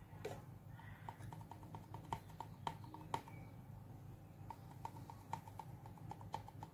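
Light metallic ticks of a steel spoon tapping and scraping against a stainless-steel mesh sieve while baking powder is spooned in, a quick, uneven series of faint clicks.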